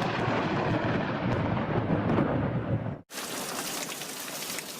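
Thunder rumbling over heavy rain. It cuts off abruptly about three seconds in, followed by the steady hiss of rain with no rumble.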